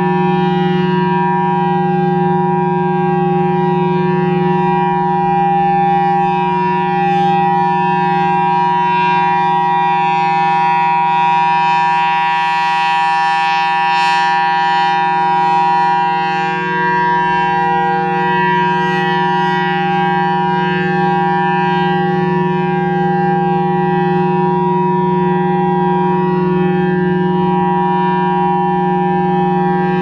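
Federal Signal Thunderbolt 1003A rotating outdoor warning siren, reverse wired, sounding a steady alert tone. The tone holds one pitch throughout, its upper notes swelling about halfway through as the rotating horn sweeps toward the listener.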